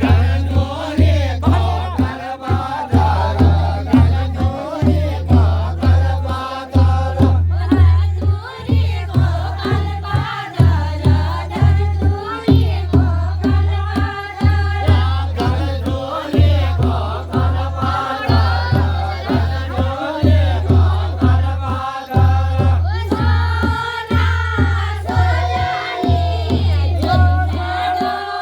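Pahari chanchari folk song: a group of voices sings over a steady, driving drum beat.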